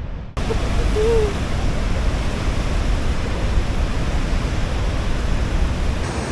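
Niagara Falls: the steady, loud rush of a huge volume of falling water, a deep even roar with no let-up.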